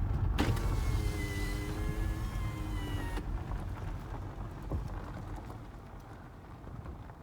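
Car engine and road rumble heard from inside the cabin, slowly dying away as the car slows. A steady, slightly falling pitched tone with a hiss sounds over it from about half a second in for roughly three seconds, then stops abruptly.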